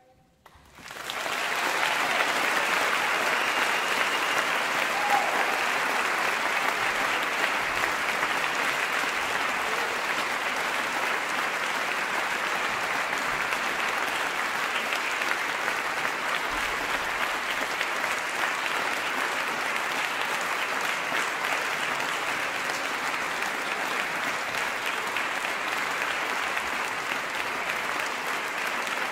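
Concert audience applauding. It breaks out about half a second in after a brief hush and goes on steadily.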